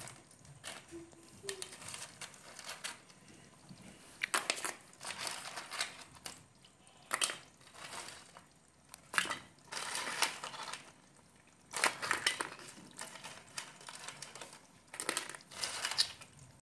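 Crab pieces being handled in a steel plate of water: the shells click and crackle against each other and the plate in irregular bursts a second or two apart.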